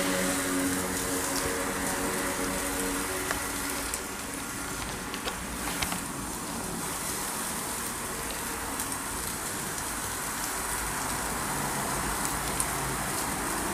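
Steady sizzling of food cooking in a pan, with a few small clicks. A held tune fades out in the first couple of seconds.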